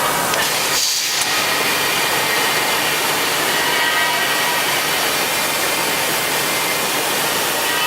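Heian ER 531P CNC router cutting: steady machining noise from the spindle and cutter, with faint high steady whine tones over it. About a second in, the sound briefly changes: the hiss gets brighter and the lower part drops away.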